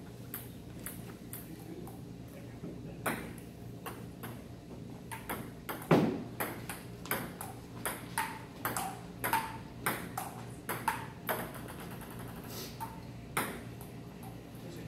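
Table tennis ball clicking off rubber paddles and a JOOLA table: a few scattered bounces at first, then a rally of about two hits a second from about five seconds in, with one much louder knock near the middle.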